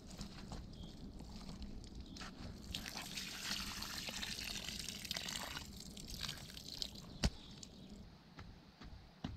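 Water pouring and trickling out of a fir-bark bucket onto the ground, swelling about three seconds in and dying away after about six seconds. A sharp knock comes near the end.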